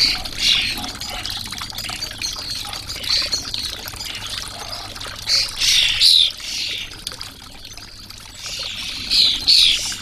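Tiered garden water fountain trickling steadily, with short, loud bird chirps from sparrows at the fountain coming in clusters, the loudest about halfway through and again near the end.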